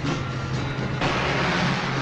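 Film soundtrack music over a car's engine. About a second in, a loud rushing hiss comes in and stays.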